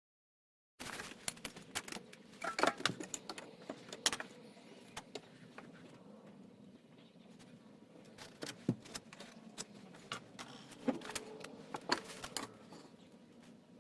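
Irregular clicks, knocks and light metallic rattling from handling tools and cabinet parts during a workbench build, starting abruptly just under a second in and busiest twice.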